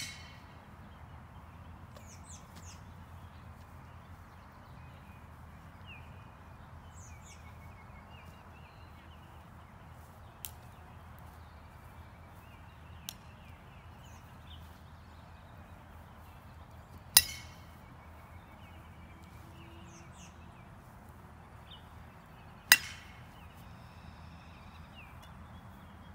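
Two sharp cracks of a baseball bat striking pieces of a mask, about five and a half seconds apart in the latter half, with a couple of faint knocks earlier. Faint bird chirps sound in between.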